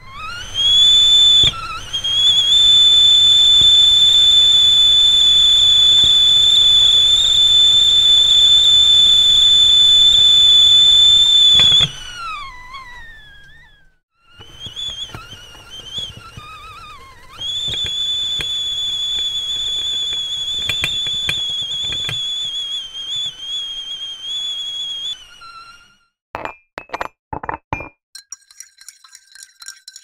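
Stovetop kettle whistling: a shrill steady whistle climbs into pitch, holds for about ten seconds and then slides down and dies away. A second, wavering whistle follows and cuts off, then a few sharp clicks come near the end.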